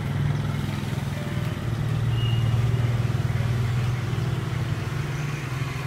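A motor vehicle engine running with a steady low hum. It grows a little louder through the middle and eases off toward the end.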